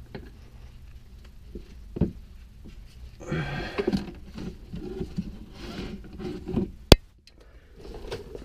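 Handling noises of someone working under a car's dash and moving about: rustling, light scrapes and knocks, with one sharp click about seven seconds in.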